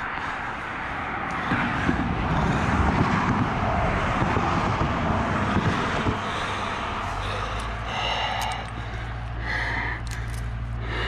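Road traffic: a passing vehicle swells and fades, then a steady low engine drone sets in about six seconds in.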